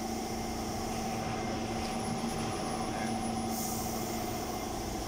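Steady mechanical hum with a constant low drone and a higher held tone, unchanging in level.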